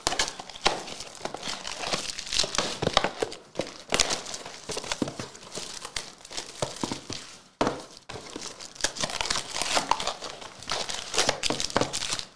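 Wrappers of 2020-21 Panini Revolution basketball card packs crinkling and tearing as they are handled and ripped open: a dense run of crackles, with a brief lull about seven and a half seconds in.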